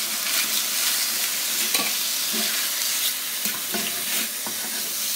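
Diced chicken, onion and garlic frying in a cast-iron pan: a steady sizzling hiss, with the scrape and knock of a wooden spoon stirring it now and then.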